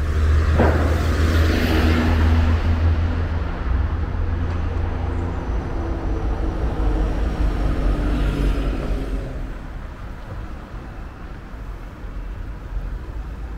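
Road traffic: cars driving past, engine hum and tyre noise, with one pass about a second in and another around eight seconds in. Quieter street ambience after that.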